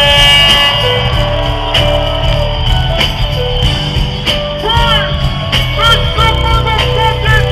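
Loud live hip-hop music through a concert sound system: heavy bass and held synth notes over a regular beat, with short rising-and-falling melodic glides in the second half.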